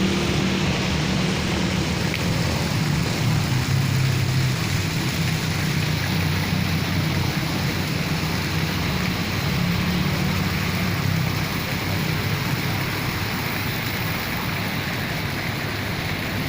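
Steady road traffic noise, with vehicle engines humming and shifting in pitch over a constant wash of noise.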